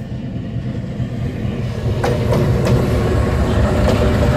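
EMD G-16 diesel-electric locomotive running slowly, its engine giving a low rumble that grows steadily louder as it comes closer. From about two seconds in there are a few sharp clicks from the wheels passing over the rail.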